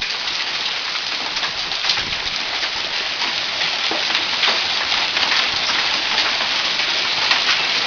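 Hailstorm: hailstones pelting down in a dense, steady clatter of countless small impacts, growing slightly louder.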